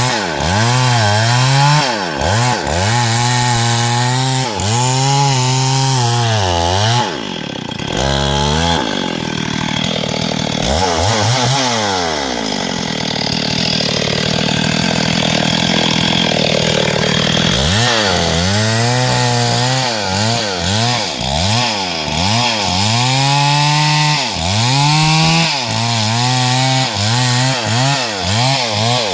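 STIHL MS382 two-stroke chainsaw running hard, its pitch rising and falling about once a second as it works through wood. About eight seconds in the engine note drops sharply, then holds steadier for several seconds before the quick rise-and-fall returns.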